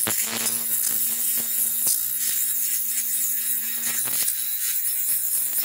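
Handheld rotary power tool with a red abrasive disc running against a rusty steel wheel hub, scouring off the rust. A steady whine with a scratchy hiss, its pitch shifting about four seconds in.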